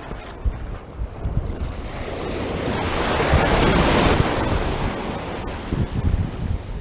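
Ocean surf: a wave breaks and washes up around the feet, its rush swelling to a peak about halfway through and then fading, with wind buffeting the microphone.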